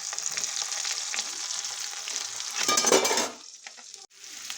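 Diced onions and capsicum sizzling in hot oil in a kadai as they are stirred, a steady crackling hiss. A louder surge of sizzling comes a little past halfway, then it goes quieter for a moment.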